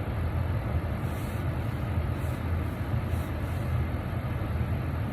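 Car engine idling, heard as a steady low rumble.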